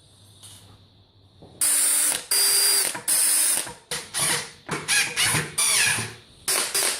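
Repeated scraping strokes of a hand tool working metal, about two a second, some with a squealing edge. They start after about a second and a half of quiet.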